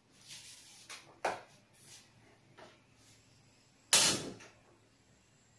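A portable gas stove being lit: one sharp ignition snap with a brief rush of gas catching about four seconds in, the loudest sound. Before it come a few light knocks of a wok and utensils being set down.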